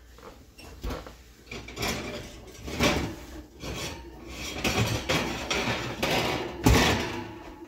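An oven being opened and a stoneware pizza stone slid out over the metal oven rack: irregular scraping, rubbing and knocking of stone and metal, with the loudest knock about a second before the end.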